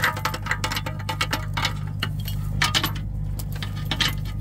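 Steel recovery chain clinking and rattling in irregular clicks as it is fished through a hole in a truck's frame rail, over the steady low hum of an engine running.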